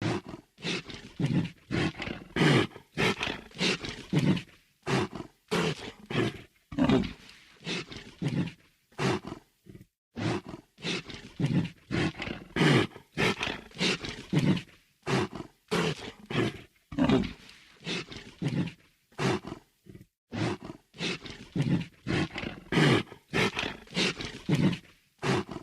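A creature's heavy breathing sound effect: quick, heavy breaths in and out, about two a second, with a brief pause every few seconds.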